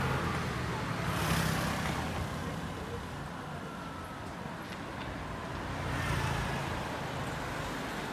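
Road traffic: motor scooters and cars driving past on a city road, engines humming under steady tyre noise. Two vehicles pass louder and closer, about a second in and again about six seconds in.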